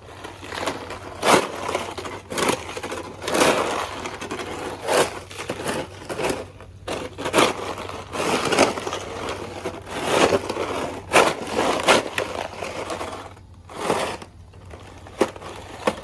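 Plastic snow shovel being shoved along pavement, cracking and scraping up a thin sheet of ice into crunching shards. The shoves come in repeated short strokes about once a second, with a brief lull near the end.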